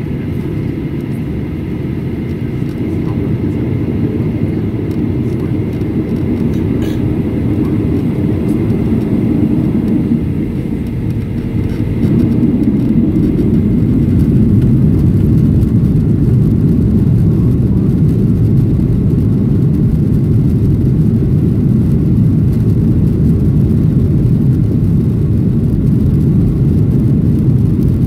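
Boeing 737-800's CFM56-7B jet engines heard from inside the cabin, a low rumble growing louder as they spool up for the takeoff roll, stepping up in loudness partway through as takeoff thrust is set.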